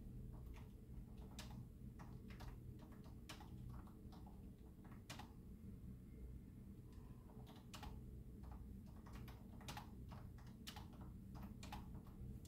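Typing on a computer keyboard: faint, irregular keystroke clicks, pausing for a second or two near the middle before picking up again, over a low steady room hum.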